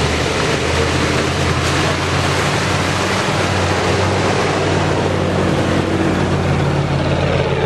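Jeep Grand Cherokee's 5.2-litre V8 running at steady revs under load while its big off-road tyres churn through mud and snow. The engine note stays even throughout, under a thick rushing noise from the tyres and mud.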